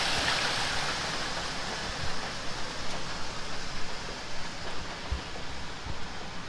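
Rushing water, a steady hiss that fades away, with a few soft low bumps about two, five and six seconds in.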